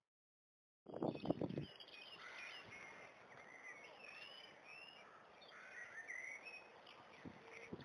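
Silent for the first moment, then birds singing: many short chirping calls sliding up and down in pitch. A burst of low thuds about a second in is the loudest part, with a few more near the end.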